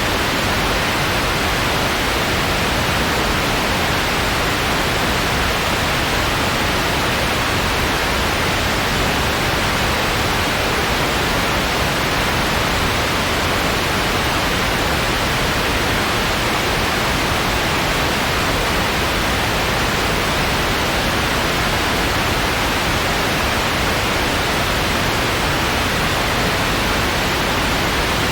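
Steady white noise: an even, unchanging hiss with no breaks or events.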